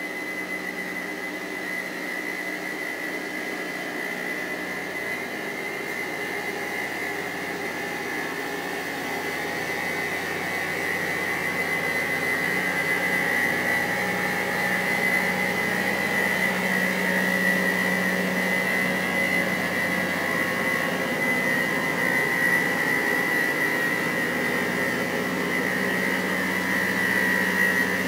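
Rail grinding vehicle grinding the rail head with its rotating grinding stones, a steady grinding noise with a strong high-pitched whine over the machine's running engine. It grows louder over the first half as the machine draws near, then holds.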